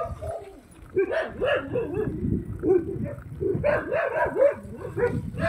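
A dog giving a rapid run of short, high yips and whines, several a second, over the low rumble of bicycle tyres on a dirt road.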